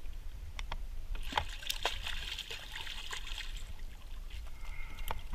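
Water splashing and trickling at the side of a kayak as a hand reaches into it. The splashing is strongest from about one to three and a half seconds in, with a few small sharp knocks scattered through.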